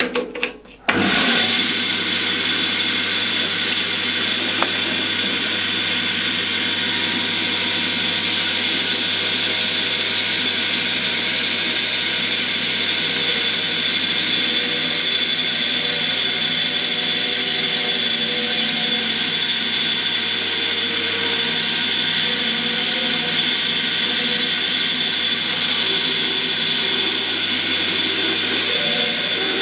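Charnwood B350 bandsaw running steadily as its blade cuts a curve through a block of pine. The sound starts abruptly about a second in.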